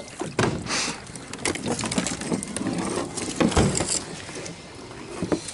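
Fishing rods with spinning reels being picked up and handled over a plastic kayak: irregular knocks, clicks and rattles as rods, reels and gear bump together and against the hull.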